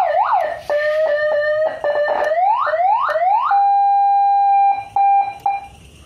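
Old FY electronic siren sounding loudly through its speaker, stepping through its tones as the selector knob is turned: quick rising whoops, short chirps, a few slower rising sweeps, a steady held tone, then several short beeps before it stops.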